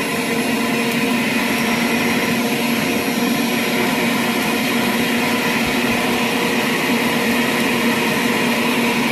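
Centrifugal electric juicer running on high, a steady motor drone with a constant hum, while produce is pressed down its feed chute with the pusher.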